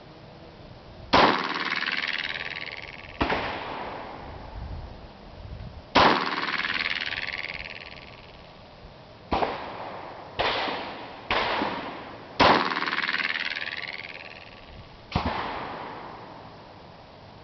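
Gunshots from a Tisas Night Stalker .45 ACP pistol firing 200-grain semi-wadcutter rounds: eight shots at an uneven pace, a slow string then a quicker run near the middle, each with a long ringing tail.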